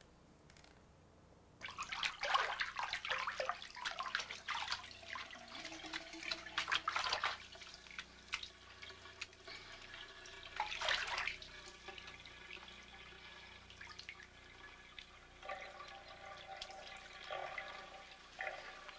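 Bathwater splashing and sloshing in a bathtub as a boy washes himself. It begins about a second and a half in with a busy run of splashes, with another burst about eleven seconds in and quieter sloshing after.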